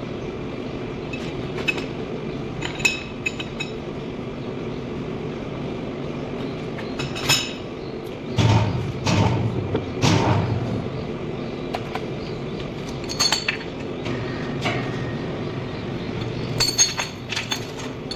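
Steady machinery hum with scattered metallic clinks and clanks of heavy steel parts being handled. The loudest clanks come about eight to ten seconds in, with more clinks near the end.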